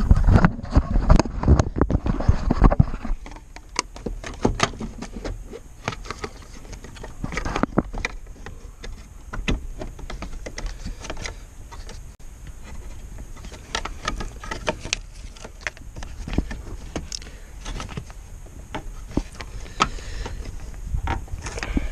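Scattered plastic clicks and knocks from hands fitting the filler neck and cap of a car's windshield washer fluid reservoir. The clicks are thickest and loudest in the first three seconds, then come sparser with pauses.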